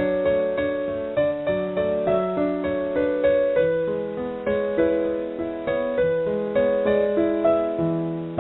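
Slow solo piano music: single notes struck one after another, a new one roughly every half second, each ringing and fading.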